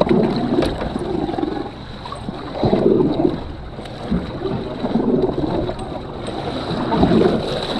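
Wind buffeting the microphone and sea water slapping against a small boat's hull, in uneven gusts that swell and ease every second or two.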